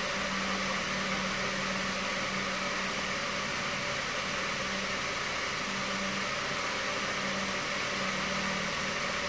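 Steady background hiss with a low hum that drops out briefly a few times.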